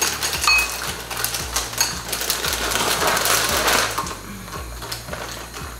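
Dry Kellogg's Panadería cinnamon-roll cereal pouring from its box into a glass bowl, a dense rattle that stops about four seconds in. A spoon clinks in another bowl now and then.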